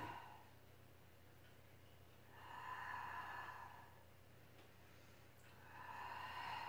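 A woman's paced breathing in time with a Pilates exercise: two long breaths, each about a second and a half, about three and a half seconds apart. A faint steady hum lies underneath.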